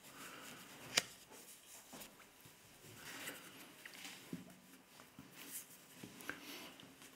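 Faint rustling and shuffling of paper sheets being handled on a table, with one sharp click about a second in.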